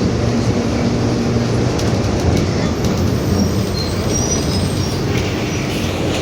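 Mercedes-Benz OF-1721 BlueTec 5 city bus under way: diesel engine and drivetrain running steadily, with the growl of a noisy differential and a hum that fades out about a second and a half in. Light squeaks and ticks from the body come and go.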